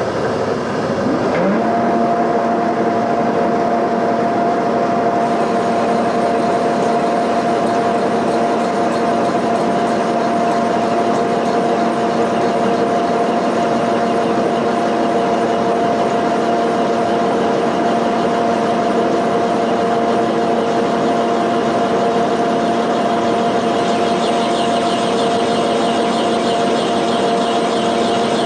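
Milling machine spindle starting up with a short rising whine about a second in, then running at a steady pitch while the cutter feeds down onto a cast iron valve guide. Near the end a higher hiss joins as the cutter bites into the cast iron.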